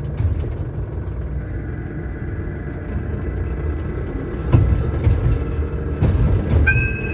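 Ride-on miniature electric train running along its track, heard from inside its cab: a steady low rumble of wheels and motor, with a single knock about four and a half seconds in. Near the end a steady high electronic beep starts.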